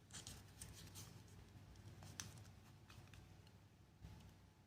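Near silence with faint, scattered clicks and rustles of small earbud packaging being handled.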